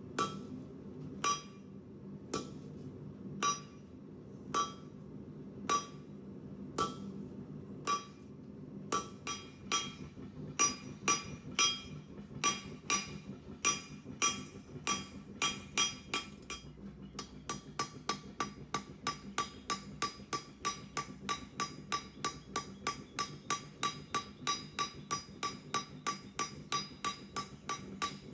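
Blacksmith's hammer striking hot steel on an anvil, each blow with a bright metallic ring. At first the blows come about once a second, then they quicken to about two a second, and in the last third they run evenly at about three a second.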